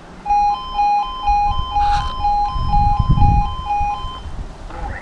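Level crossing audible alarm sounding a two-tone warble, high and low tones alternating about twice a second; it stops about four seconds in. A low rumble swells under it about halfway through.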